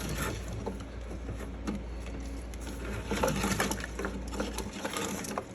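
Scattered clicks and rustling of hands handling a wiring harness and plastic connectors inside a pinball machine cabinet, over a low hum that cuts off near the end.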